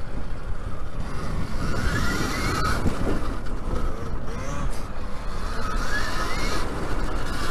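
Alta Redshift MXR electric dirt bike being ridden on a dirt trail, its electric motor whine rising briefly twice with the throttle over a steady rush of wind and trail noise.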